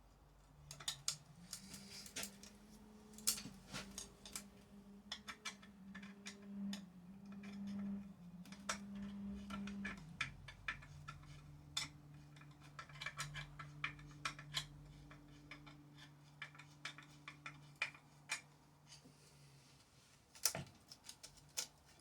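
Chainsaw chain being tensioned and worked round the bar by hand: many irregular light metallic clicks and ticks. A faint steady hum runs underneath, dropping in pitch about halfway and stopping near the end.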